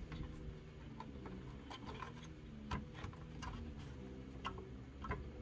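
Faint, scattered clicks and ticks as a 6526 CIA chip is handled and pressed down into its IC socket, over a low steady hum.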